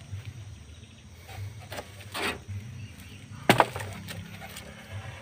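Celurit sickle blade chopping into thick, dry, old bamboo: a sharp double crack of the woody strike about three and a half seconds in, after a softer scraping sound about two seconds in.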